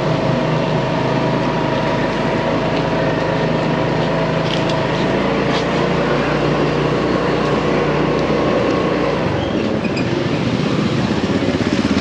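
Motorcycle engine running steadily, with road and traffic noise around it; the engine note shifts about nine seconds in.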